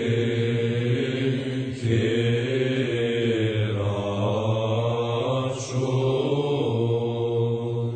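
A psalm chanted in a slow melody over a steady, unbroken low drone note.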